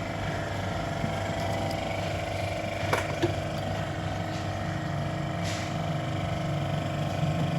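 Steady mechanical hum with fixed low tones, broken by a couple of sharp clicks about three seconds in.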